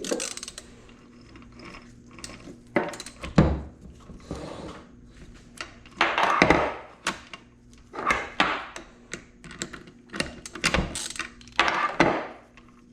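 Honda CR85RB two-stroke's gearbox being shifted by hand down through the gears to neutral. The shift drum and selector click and the gears clunk into place, in an irregular series of clicks and clunks with several louder shifts.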